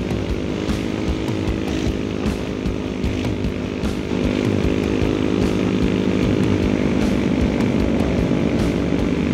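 Automatic motor scooter's small engine running steadily while riding along, a little louder from about four seconds in.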